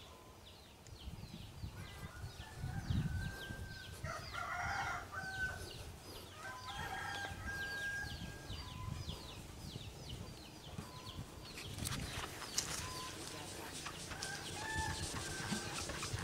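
A rooster crowing and chickens clucking, over a high chirp repeated a few times a second. Scuffing and rubbing noises come in near the end.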